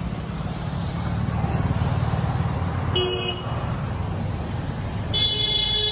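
Two vehicle horn toots over a steady low rumble of traffic: a short one about three seconds in and a longer, held one near the end.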